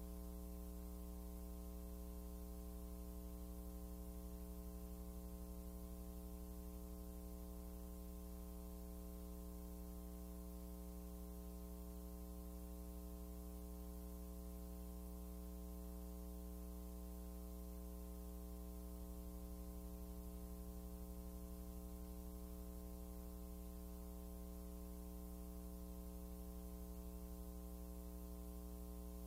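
Steady low electrical hum with a ladder of overtones and nothing else over it: mains hum on an otherwise silent soundtrack.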